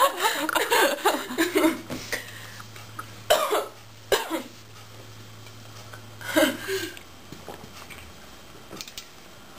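Short burps and coughs from a woman who has just chugged cola: two brief ones about three and four seconds in, and a longer, lower-pitched one a little after six seconds.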